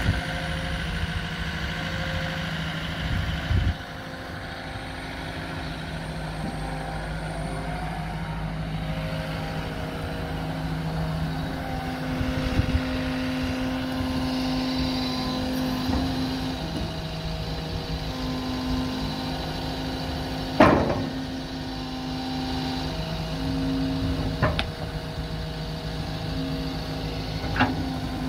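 A Komatsu PC170LC-11 hydraulic excavator's four-cylinder diesel engine running under working load, with steady tones from the machine that step up and down as the boom and arm are worked. A few sharp knocks come through, the loudest about two-thirds of the way through.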